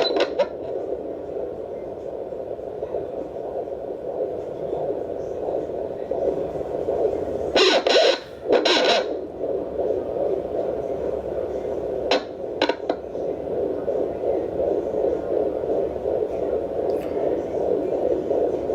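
Handheld fetal Doppler's loudspeaker giving a steady static hiss as the probe searches over a pregnant belly, with a few louder bursts of probe noise about eight seconds in and short clicks around twelve seconds.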